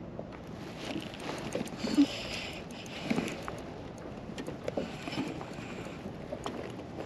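Small waves lapping against a pedal kayak's hull, with scattered light clicks and knocks and one sharp knock about two seconds in.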